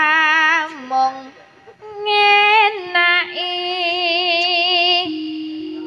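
A sinden, a female Javanese singer, singing a langgam campursari song into a microphone, with wavering vibrato. A short phrase opens and breaks off, then a long held phrase runs from about two seconds in.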